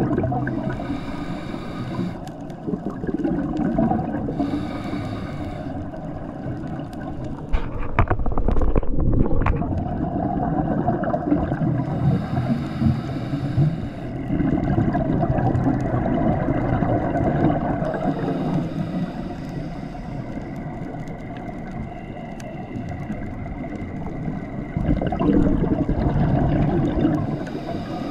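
Scuba diver breathing through a regulator underwater: hissing inhalations and gurgling bursts of exhaled bubbles every several seconds, over a steady low rumble of water.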